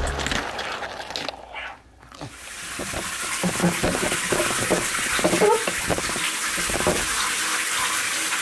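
Background music fades out about two seconds in, then water runs steadily from the tap into a bathtub.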